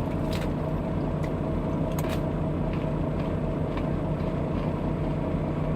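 Steady low hum of an idling vehicle engine, with a few short crisp crunches in the first two seconds, fitting hard mini pretzels being chewed.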